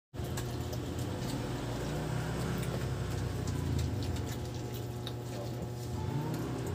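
People eating by hand at a table: faint scattered clicks and smacks of chewing and food handling over a steady low hum.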